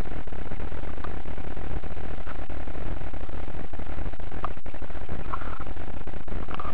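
Wind buffeting the microphone on a sailing yacht under way, a steady loud rush with heavy low rumble.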